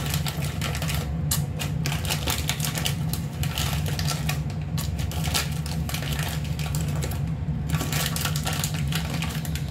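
Irregular crinkling and clicking of a plastic snack bag of peanuts being handled, over a steady low hum.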